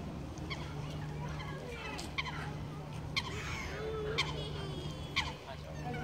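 Canada geese honking in a series of short calls, about one a second, over a steady low hum.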